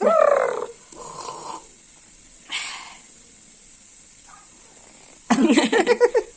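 Pet parrot calling: a short call falling in pitch, a softer call and a harsher squawk, then a quick burst of chattering near the end.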